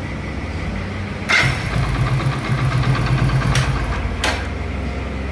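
Hero Splendor Plus motorcycle's electric self-starter cranking the single-cylinder engine, about a second in, with a rapid low pulsing. It sounds strained and labored even though the engine starts: the fault lies inside the starter motor.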